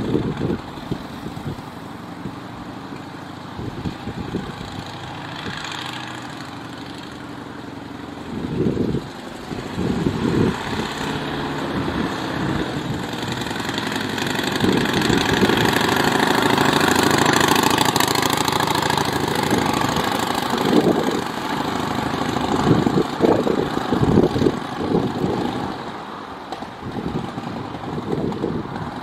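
The engine of a 1922 Matchless Model H motorcycle with sidecar running as it is ridden. It grows louder as the machine comes toward the listener and passes, loudest a little past the middle, then fades as it rides away.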